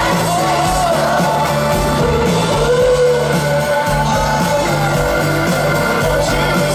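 Live pop-rock band playing through a concert PA, with a lead vocalist singing over electric guitars, bass, drums and keyboard, heard from among the audience.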